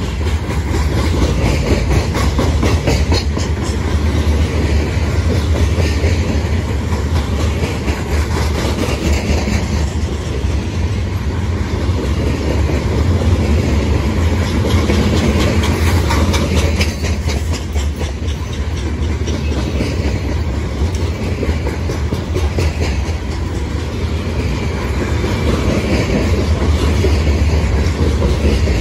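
Covered hopper grain cars of a CSX freight train rolling past close by: a steady rumble, with wheels clicking over the rail joints.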